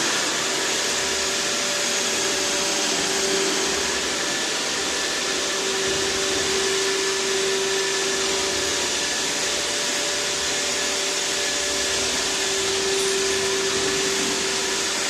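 iRobot Roomba 612 robot vacuum cleaning the floor, running with a steady whirring hiss and an even humming tone.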